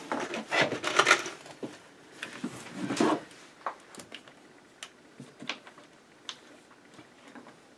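Handling noises from PVC conduit and its clamps being worked into place against a wooden wall: bursts of scraping and rubbing in the first second or so and again around three seconds in, then scattered light clicks and knocks that fade.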